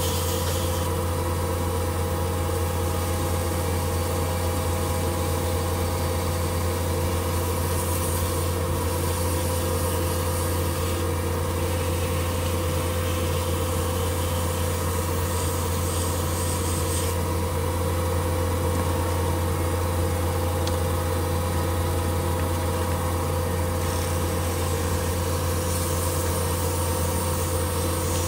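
Metal lathe running steadily with a strong low hum, while abrasive paper is pressed against a spinning tungsten button, adding a hissing rub that shifts several times as the paper is moved and changed.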